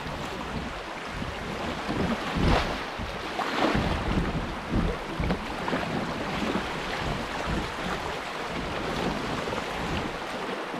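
Water splashing and sloshing around a kayak, with wind buffeting the microphone in irregular low thumps.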